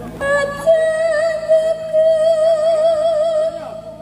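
Music played through a stacked outdoor sound system: a melody on long held notes with a wide, wavering vibrato, with little bass coming through.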